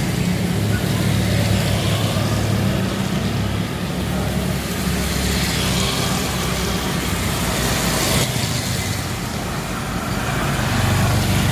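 A motor vehicle's engine runs close by, a steady low hum that swells a little near the end, over an even hiss of falling rain.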